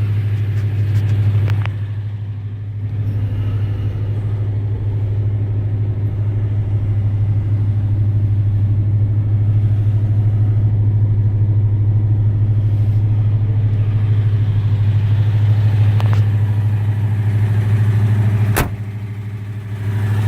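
The 1987 Jeep Grand Wagoneer's AMC 360 V8 idling steadily with a low, even hum. A single sharp click sounds near the end.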